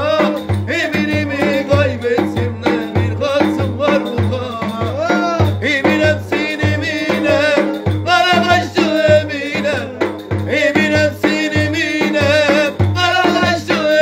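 Davul, a large double-headed Turkish bass drum, beaten in a steady beat under a man singing a folk dance tune (oyun havası) with a wavering, ornamented voice.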